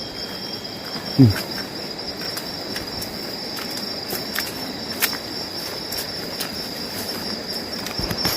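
Steady high-pitched chorus of forest insects such as crickets or cicadas, with scattered light ticks. About a second in there is one brief, loud, low sound that falls in pitch.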